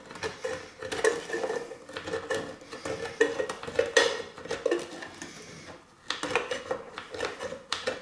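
An all-steel Swedish Army can opener cutting easily around the rim of a tin can: a quick, irregular run of metallic clicks and scrapes, with a short pause about six seconds in.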